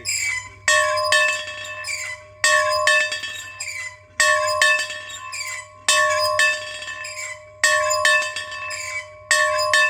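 A bell being rung, struck in quick pairs of strokes that repeat about every second and a half to two seconds. Each stroke rings on with a steady tone, which overlaps the next.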